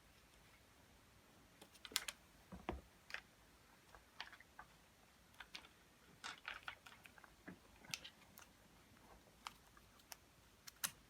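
Scattered light clicks and taps of seatbelt hardware being handled while the top anchor bolt is fitted, with one slightly heavier knock a few seconds in.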